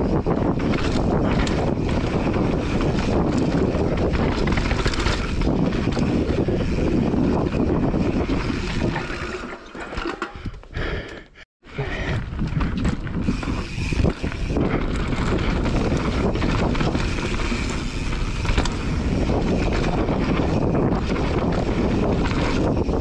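Wind buffeting the microphone of a camera mounted on a mountain bike riding down a dirt singletrack, mixed with the rumble and rattle of the bike's tyres on the trail. About ten seconds in the noise dies down for a couple of seconds and cuts out completely for a moment before returning.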